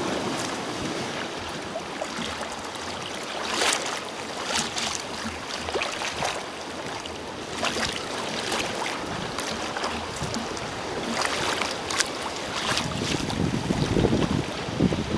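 Choppy sea water sloshing and splashing around a moving sea kayak, with a sharper splash every few seconds. Wind buffets the microphone, rumbling more strongly near the end.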